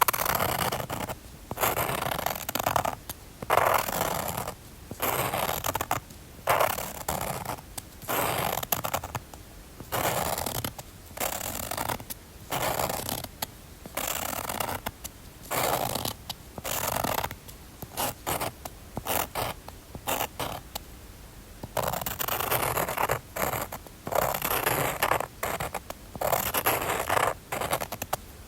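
A drawing tool scratching across paper in short, quick strokes, roughly one or two a second, with a pause of about two seconds about two-thirds of the way through.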